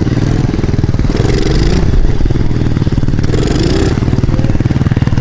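Dirt bike engine running hard under the rider, its pitch rising twice as the throttle opens, about a second in and again past three seconds.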